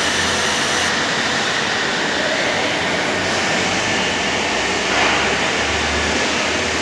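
MIG welding wire feeder running, its drive rolls pushing copper-coated MIG wire through to the torch with the trigger held, over a steady machine noise; the highest part of the hiss drops away about a second in.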